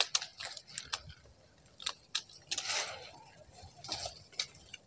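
Durian flower clusters being snapped off a branch while the blossoms are thinned: a run of small sharp snaps and clicks, with a brief rustle of leaves about halfway through.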